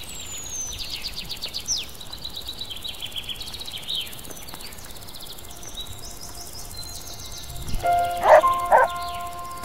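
Small birds singing with fast high trills. About eight seconds in, a dog barks twice, and soft held music tones come in.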